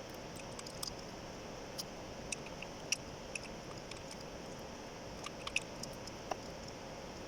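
Light, irregular metallic clicks and clinks of hand tools and engine parts being handled, over a steady background hum.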